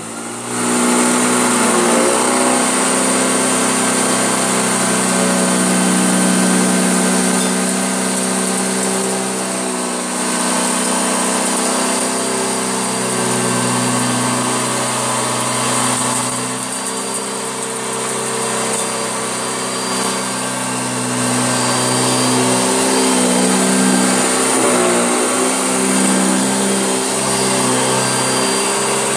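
Hoover Junior upright bagged vacuum cleaner running continuously, a steady motor hum whose pitch dips and recovers slightly a few times as it is worked over the mess.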